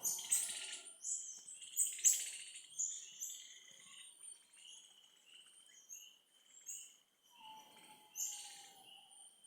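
Wild birds chirping, with many short high calls repeating. There are louder bursts of calls near the start, about two seconds in and near the end, along with a lower drawn-out whistle shortly before the last burst.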